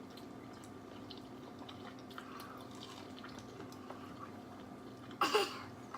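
Quiet wet clicks and smacks of people eating a seafood boil, over a steady low hum. About five seconds in comes one louder, short sound.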